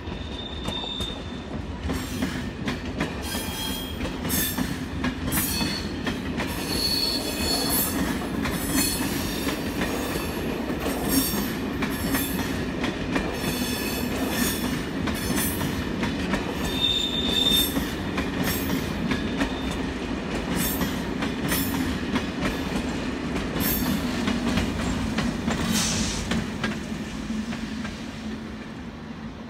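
A push-pull passenger train of Corail coaches with a BB 22200 electric locomotive passing close by. Its wheels click over the rail joints throughout, over a steady low hum, with brief high-pitched wheel squeals a few times. Near the end the sound swells as the locomotive goes by, then fades.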